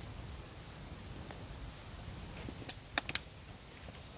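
Small fire of burning clothes and wood on an ash pile, with a low steady rush of flame and wind and a few sharp crackling pops, four close together about three seconds in.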